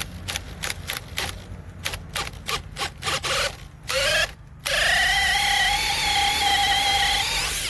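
Makita brushless hammer drill with a paddle bit in oak: a run of sharp, irregular clicks and knocks, then a brief spin-up, and from about two-thirds of the way in the motor runs at a steady high whine for about three seconds before cutting off.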